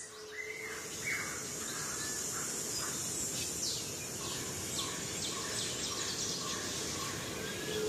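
Daytime forest ambience: birds calling with short falling chirps and whistled notes over a steady high-pitched insect drone.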